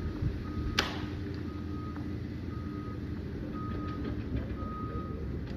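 Liebherr 744 crawler dozer's diesel engine running with a steady low rumble while its reversing alarm beeps about once a second as it backs up. One sharp click about a second in.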